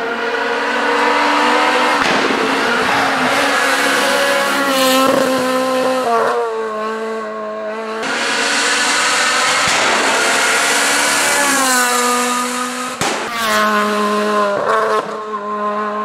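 Rally car engines at full throttle on a tarmac stage, revving up and dropping in pitch again and again through gear changes as the cars drive past, with several sharp bangs in between. The sound breaks off and starts again a few times as the passes change.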